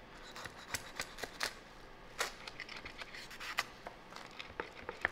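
A knife cutting down through a toasted burger bun and fried egg on a wooden cutting board: quiet, irregular crackles and clicks as the crust gives way.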